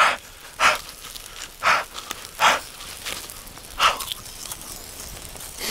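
A person eating a bite of charcoal-grilled chicken skin, chewing with several short, separate puffs of breath through the mouth in the first four seconds.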